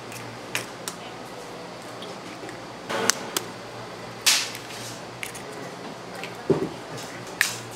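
Scattered clicks, taps and knocks of cake-decorating tools and containers being handled, over a steady low hum. The sharpest knock comes about four seconds in, and a duller thump about six and a half seconds in.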